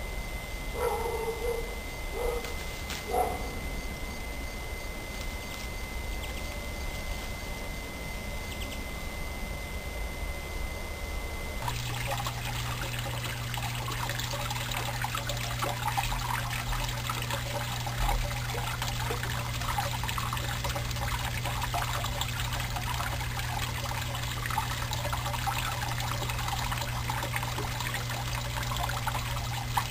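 Water trickling and splashing steadily, starting abruptly about twelve seconds in, over a low steady hum. Before that, a quieter steady hum with a high whine and three short calls near the start.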